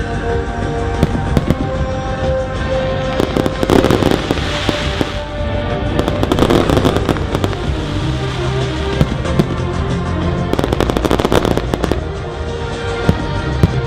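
Aerial fireworks going off overhead: many sharp bangs and crackles in dense clusters, with music playing throughout.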